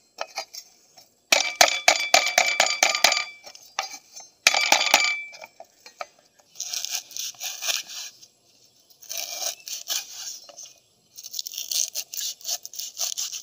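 Cleaver chopping and slicing lemongrass stalks on a wooden cutting board, in several bursts of quick strokes.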